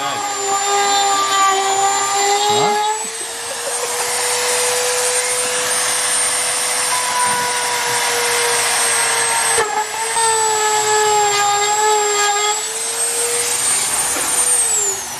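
Handheld rotary tool running at high speed with a steady whine, drilling small holes through a plastic bumper lip for zip-tie stitching. Its pitch wavers slightly and falls away as it spins down near the end.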